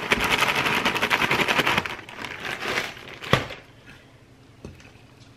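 Brown sugar poured from a plastic bag into the ceramic crock of a slow cooker: a dense, fast crackling rustle of bag and falling sugar for about two seconds. Then quieter rubbing as the sugar is spread by hand over the bottom, with one sharp knock a little after three seconds.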